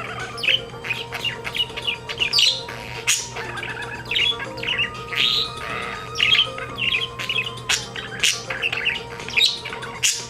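Budgerigar warbling: a continuous chatter of quick chirps, clicks and short squawks.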